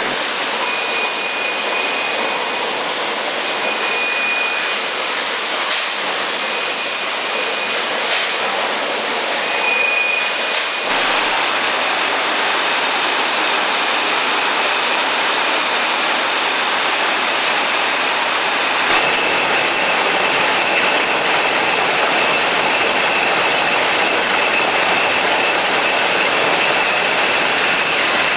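Loud, steady machine noise of a running packaging production line, with a short high whine coming and going a few times in the first ten seconds and a steady high tone in the second half.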